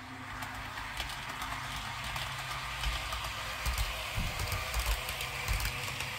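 Model train running along the layout's track: a steady low hum with a rapid clicking rattle from the wheels and track, slowly growing louder as it comes closer, with a few duller knocks in the second half.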